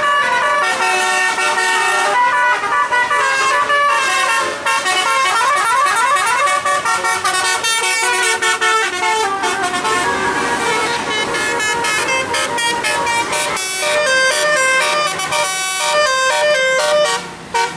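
Tour bus's Basuri 'telolet' musical air horn playing a tune: a run of held horn notes, then pitch glides, then quick short repeated notes over the second half.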